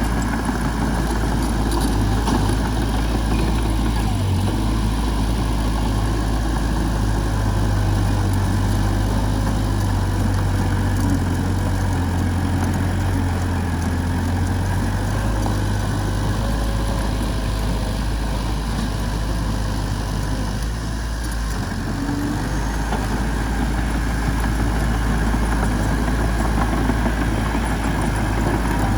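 Diesel engine of heavy machinery running steadily, with a short dip in level about two-thirds of the way through.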